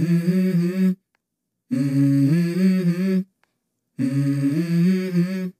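Background song intro: a voice humming a wordless melody in three short phrases, each about a second and a half long, with silent gaps between them.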